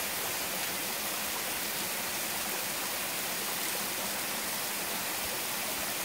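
Steady rushing of a small waterfall spilling over travertine ledges, with a modest flow of water.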